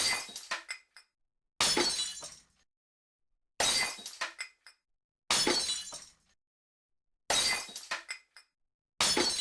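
Glass smashing, six times over at about two-second intervals: each a sharp crash followed by scattered tinkling shards that die away within a second, with silence between.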